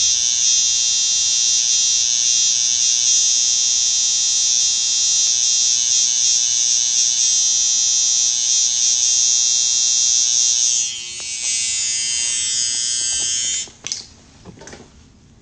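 Electric hair clippers running with a loud, steady high-pitched buzz during a haircut. The buzz dips and changes about eleven seconds in, then cuts off suddenly near the end, followed by a few faint knocks.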